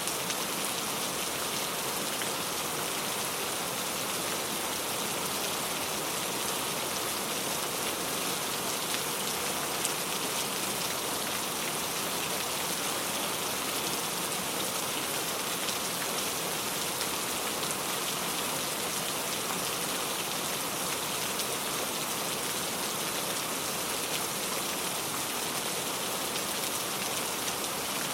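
Heavy rain falling steadily, an even hiss of many drops hitting a surface, with faint scattered drop ticks.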